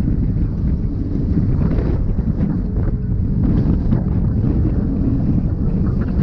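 Wind buffeting the microphone of a camera on a moving bicycle: a steady, loud low rumble.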